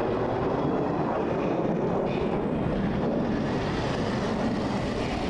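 F-16 fighter jets flying past in formation, their engines heard as a steady rushing jet noise that holds even in loudness.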